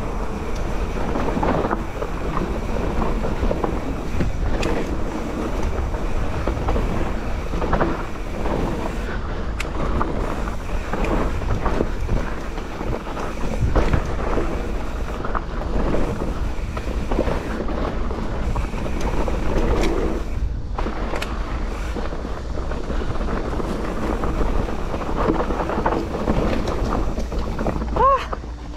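Mountain bike descending a dirt trail: tyres on dirt and stones, with the bike rattling and knocking over bumps and wind buffeting the microphone. A brief squeal comes near the end as the bike reaches rocky ground.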